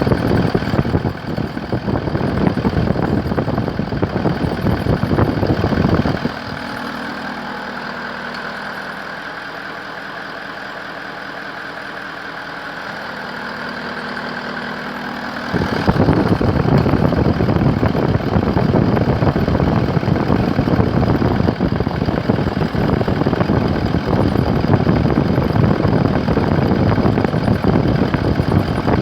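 Engine running under the hood of a new car with a whistle from the engine bay. In the middle stretch the rough rumble drops away for about nine seconds, leaving steadier tones, then it comes back.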